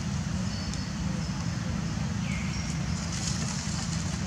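Steady low outdoor rumble, with a faint short squeak about two seconds in.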